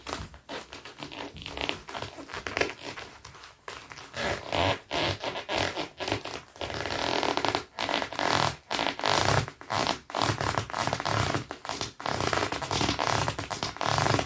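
Dr Martens leather boots rubbed against each other, squeaking in a quick string of strokes. The strokes are sparser and softer for the first few seconds, then come louder and almost without a break.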